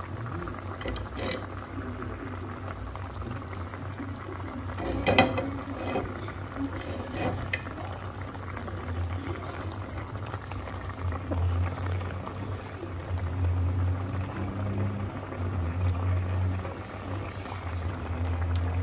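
Food cooking on the stove, bubbling and sizzling steadily. A few sharp clinks of a utensil or pot come in the first half.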